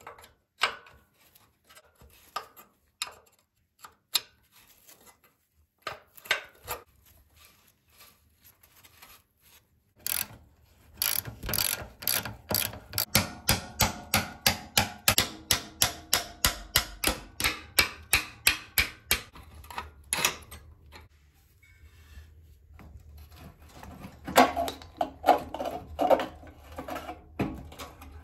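Hand tools working on the mounting bolts of a Csepel 125 motorcycle engine. A few scattered metal clicks and knocks come first. About ten seconds in, a ratchet wrench starts clicking steadily, roughly three clicks a second, for about ten seconds. Near the end there are heavier metal clunks.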